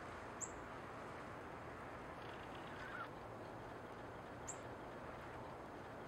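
Belted kingfisher giving a brief, faint, harsh rattle call about halfway through, over a steady background hiss, with a couple of tiny high chirps.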